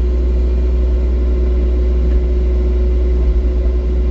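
Excavator's diesel engine running steadily with a deep rumble and a steady tone over it, muffled as heard from a phone in the operator's pocket in the cab.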